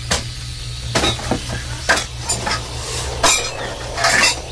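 A few sharp clinks and knocks at uneven intervals over a steady low hum.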